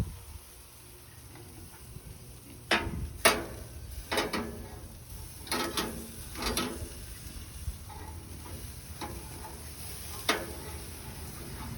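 Metal spatula scraping and clinking against the grill grates as cooked hamburger patties are lifted off, a handful of short sharp strikes spread irregularly over several seconds.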